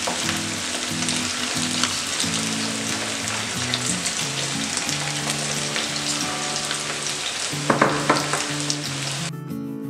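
Marinated chicken pieces deep-frying in hot oil in a wok, sizzling steadily with small pops. The sizzle cuts off suddenly near the end, leaving only background music.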